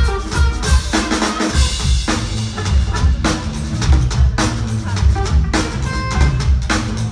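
Live band playing, with the drum kit to the fore: a steady beat of kick drum, snare and cymbal hits under electric guitar.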